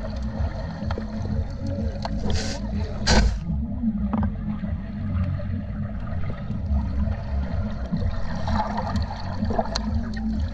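Loud party music heard muffled, mostly its heavy pulsing bass, under a wash of water and crowd noise. Two short bursts of loud hiss come about two and a half and three seconds in.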